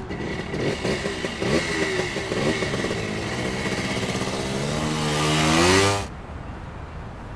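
A padlock clicks shut, then a Suzuki VanVan motorcycle's single-cylinder engine revs and pulls away, its pitch rising and getting louder until it cuts off suddenly about six seconds in.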